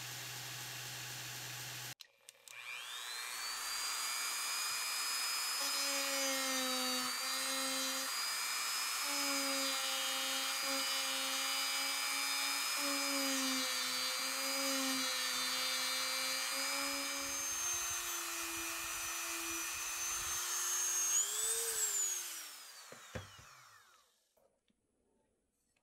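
A handheld rotary tool with a sanding drum spins up to a high whine and grinds the steel near the tang of a yanagiba sashimi knife, its pitch wavering as the drum loads against the metal. Near the end the pitch rises as it comes off the work, then it is switched off and winds down. A steady low hum comes before it.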